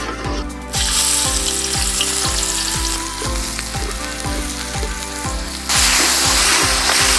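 Food frying in hot oil, a dense crackling sizzle that starts about a second in and jumps abruptly louder near the end. Background music with a steady beat plays underneath.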